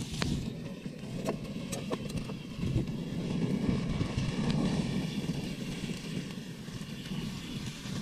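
Wood fire burning under a pan in an open barbecue hearth, with a few sharp crackles, over an irregular low wind rumble on the microphone that is loudest as the flames flare up in the middle.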